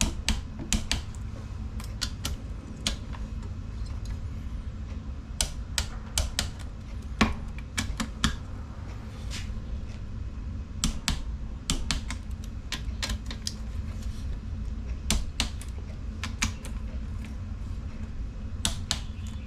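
Ratcheting torque wrench clicking in short runs of quick clicks as the sump cover bolts on a 5 hp Tecumseh engine are tightened in a star pattern to about 120 inch-pounds.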